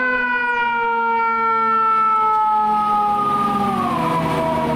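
A fire engine's mechanical siren, wound up just before and now coasting slowly down in pitch, dropping further about four seconds in. The low rumble of the truck's diesel engine runs beneath it as the rig pulls out.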